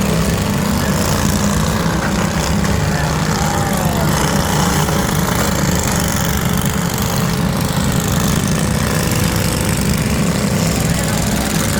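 Lawn mower engines running steadily, a dense, rapidly pulsing engine drone at a constant loudness.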